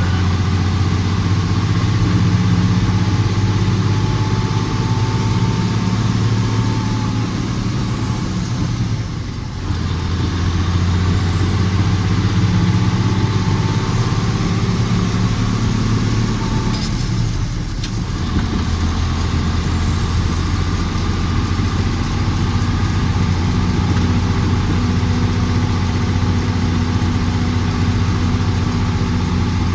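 Autocar truck's diesel engine running steadily under way. The engine sound dips briefly twice and then picks up again.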